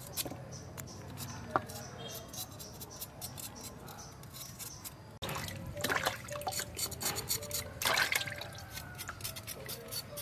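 Water dripping and splashing as wet ingredients are handled over bowls, with many small clicks and taps. The sound breaks off briefly about five seconds in and comes back with louder splashes.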